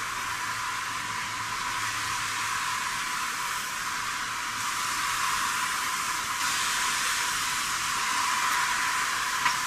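Steady hiss of rain falling on a flooded road and puddles, thin and with no low end, growing slightly louder partway through.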